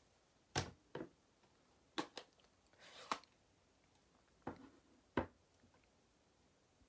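Plastic stamp ink pad cases being handled and set down on the desk: about seven sharp clicks and knocks at irregular intervals, with a short rustle just before one of them about three seconds in.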